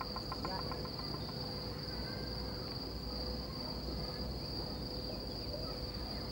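Insects trilling in a steady high chorus over a low rumble, with a faint ticking that dies away just after the start.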